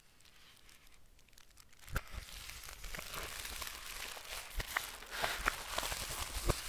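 Packaging being handled, crinkling and tearing with small clicks, starting about two seconds in.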